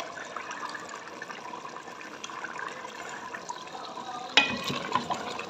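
Thick beef-and-tomato gravy bubbling and spluttering in a pot as it is stirred and fried down with a wooden spoon, its leftover water cooking off. There is one short sharp knock about four seconds in.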